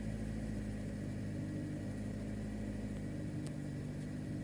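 Engine idling, a steady low hum with a few held tones.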